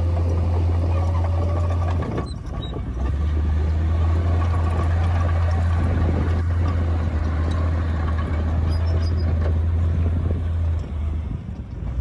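Komatsu D58P bulldozer's diesel engine running with a steady low rumble, dipping briefly about two seconds in and again near the end.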